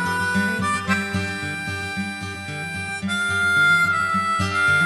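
Background music: a harmonica tune of long held notes over guitar accompaniment.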